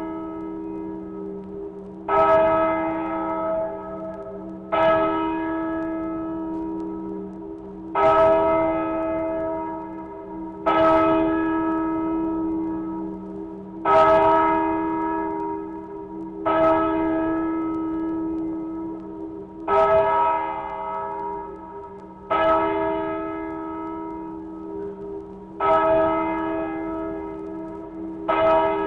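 Church bell tolling, struck about every three seconds with the gaps alternating slightly shorter and longer, each stroke ringing on into the next, over a steady low hum. Played from a 1967 His Master's Voice sound-effects record.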